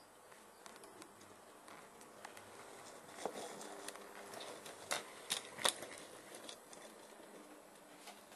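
Model train running on the layout: light, irregular clicking and ticking from its wheels on the track, with a few sharper clicks between about three and six seconds in.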